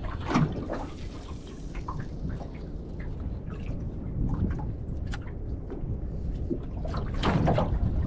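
Water lapping and splashing against the hull of a small aluminium boat drifting at sea, with a steady low rumble underneath and scattered small slaps and knocks, a little louder near the end.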